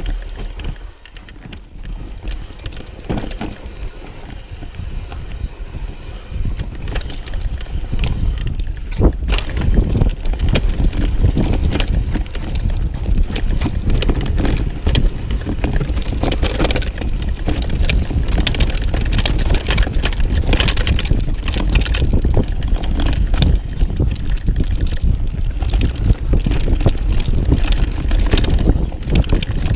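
Mountain bike descending a dirt forest trail: wind rumbling over the microphone, tyres on dirt and the bike's frame and parts rattling over bumps and roots in many quick knocks and clicks. It gets louder and busier about nine seconds in as speed picks up.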